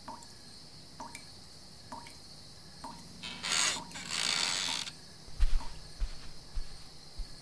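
A kitchen tap dripping, a short plink about once a second. A little past the middle come two loud hissing swishes, then a few soft low thumps near the end.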